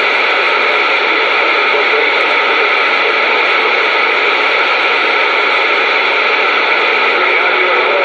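Steady static hiss from a CB radio's speaker between transmissions, band-limited and even, with no voice on the channel.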